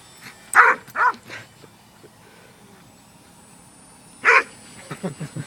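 Dog barking: two sharp barks about half a second apart near the start, a softer one just after, then another bark about four seconds in, followed by a run of short low sounds near the end.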